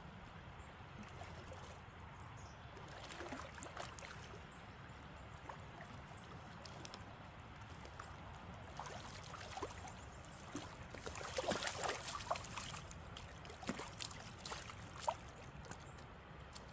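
River water running steadily, with scattered clicks and rattles from handling a fishing rod and spinning reel, densest about two-thirds of the way through.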